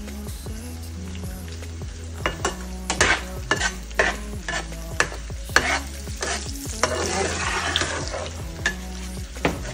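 Diced sausage frying in oil in a nonstick pan, stirred with a metal spatula: repeated scrapes and clicks of the spatula against the pan over a steady sizzle. The sizzle grows louder about seven seconds in, as the pieces are pushed aside and the hot oil is exposed.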